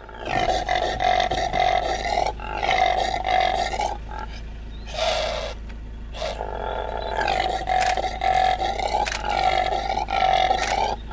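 Male impala roaring: a string of loud, harsh grunting calls, mostly a second or two long with short breaks between them, over a steady low hum.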